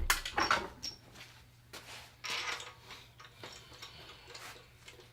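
Metal engine parts and hand tools being handled: several sharp knocks and clinks in the first second, a short scraping rustle a little after two seconds in, then lighter scattered clicks.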